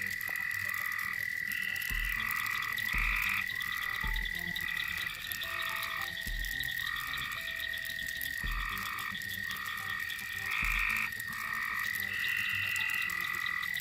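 A chorus of frogs calling: one steady high trill runs throughout, while shorter calls at a few different pitches overlap and repeat every second or so.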